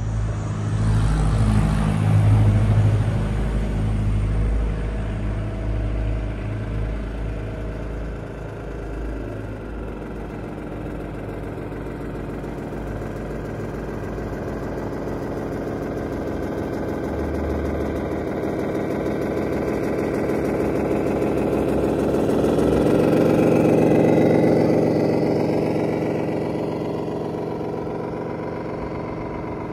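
Radio-controlled model trucks driving, with the simulated diesel engine sound of their onboard sound modules running steadily. It swells as a truck towing a low-loader trailer passes close by, about three quarters of the way through.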